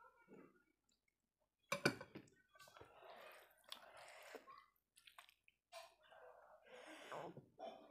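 A sharp clack about two seconds in as the glass dal bowl is set down, then soft wet squishing of rice and dal being mixed by hand on the plate, in two stretches.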